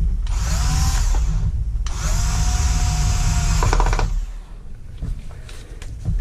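Power drill run in two short bursts, its motor whine rising quickly and then holding steady before stopping sharply. A steady low rumble sounds underneath.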